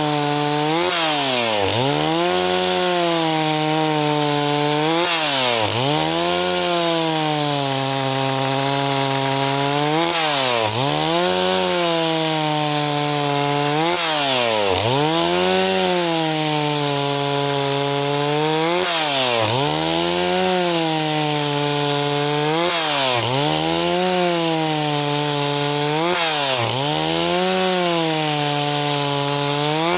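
Stihl 038 two-stroke chainsaw running at high revs, its pitch dipping sharply and recovering every two to four seconds.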